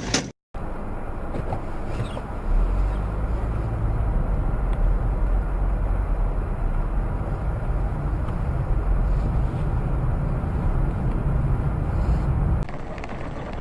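Steady road and engine noise of a moving car heard from inside the cabin through a dashcam microphone, with a deep rumble that grows stronger a couple of seconds in. A brief dropout to silence comes just after the start.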